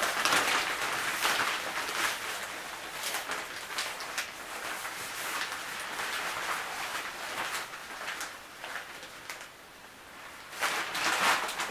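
Fabric shower curtain and liner rustling and crinkling as they are handled and fitted with plastic curtain rings. The rustle dips briefly and grows louder again near the end.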